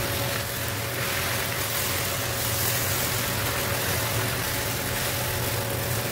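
Stir-fried noodles sizzling in a wok on high heat as a spatula tosses and mixes them with the freshly added sauce, over a steady low hum.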